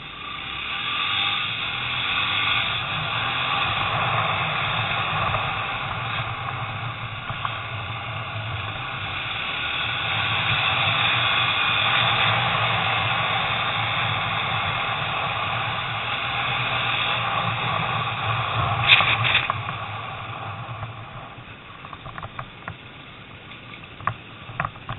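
Steady rushing noise of a vehicle moving along a lane: wind buffeting the microphone over a low engine hum, swelling and easing. It drops to a quieter hiss with a few clicks about four-fifths of the way through.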